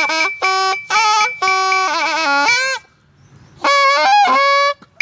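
Thai pi, a reed oboe, playing short phrases of sliding, bending notes, with a break of about a second after the middle before one last phrase.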